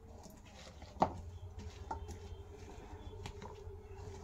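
Spatula stirring a chopped chickpea salad in a bowl: soft scraping and light taps against the bowl, the sharpest tap about a second in.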